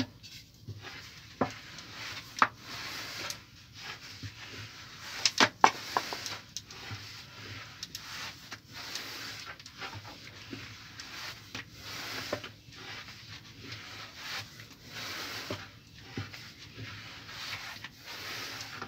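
Long thin wooden rolling pin (oklava) rolling over a thin sheet of dough on a floured wooden board: repeated swishing strokes, with a few sharp wooden clacks, the loudest a quick cluster about five seconds in.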